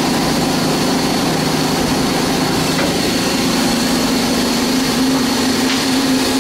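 2002 Hanwha SL-20HP Swiss-type CNC lathe running under power: a steady machine hum with a thin high whine above it.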